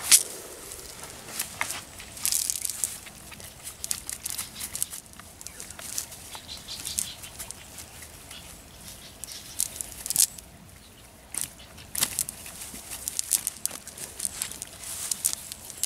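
Live freshly netted fish flopping on grass and against a wet cast net: irregular quick slaps and rustles, with one sharp slap right at the start.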